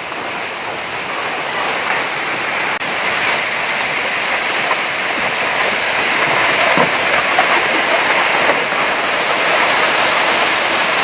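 A heavy hailstorm with rain: large hailstones and rain pelting down in a dense, steady hiss with faint scattered ticks, slowly growing a little louder.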